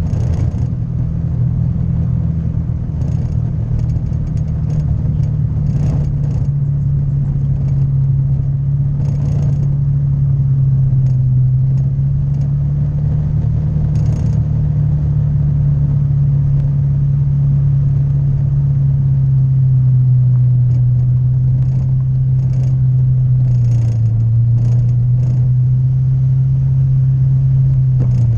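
Honda Vario 150 scooter's single-cylinder engine running at a steady cruising pitch that sags slightly now and then, under wind and road noise, with several short knocks from the rough road surface.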